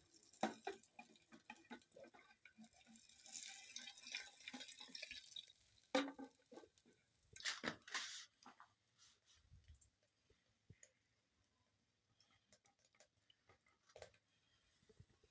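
Liquid splashing and sloshing in a plastic bowl, with scattered knocks of plastic containers being handled. A splashy stretch comes about three seconds in, and it thins to a few faint clicks in the second half.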